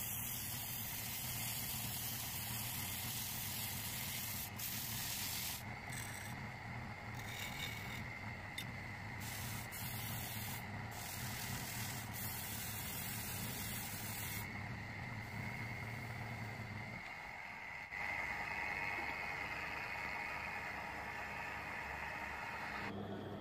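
Wood lathe running steadily while a turning wooden cylinder is hand-sanded, a constant machine hum with a steady high whine. The running note changes about three-quarters of the way through.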